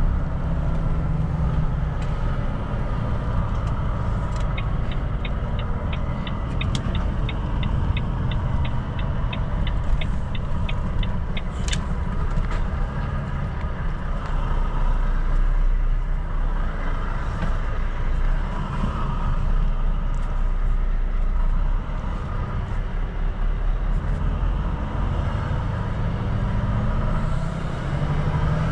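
Volvo FM4 truck's engine running and road noise while driving, a steady low rumble. Partway through comes a rapid, regular ticking lasting about seven seconds, then a single sharp click.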